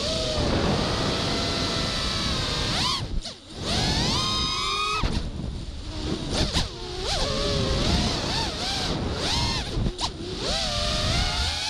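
A five-inch FPV quadcopter's brushless motors and three-blade props whine, the pitch rising and falling with the throttle, over a low rumble of wind. The whine drops away briefly, about three seconds in, as the throttle is cut, then climbs again.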